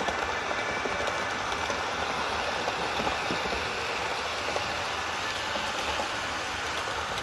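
HO-scale model train, a Katsumi Kintetsu Shimakaze, running past close by: a steady rolling hiss from its wheels and motor on the track, with many small clicks.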